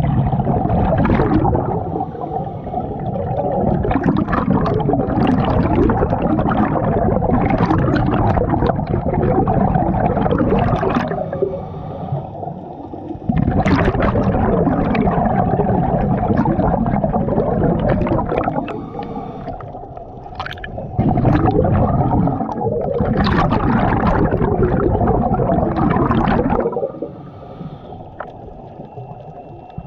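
Scuba diver breathing through a regulator underwater: exhaled bubbles gurgle and rumble in long stretches of several seconds, with quieter gaps between breaths.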